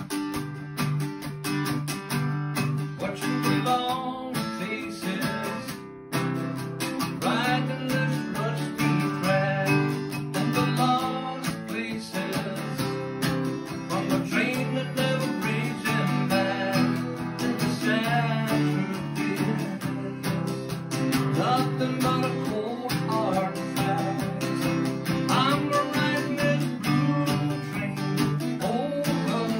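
A man singing a folk song to his own strummed accompaniment on a small-bodied acoustic string instrument. The strumming opens alone and the voice comes in a few seconds in.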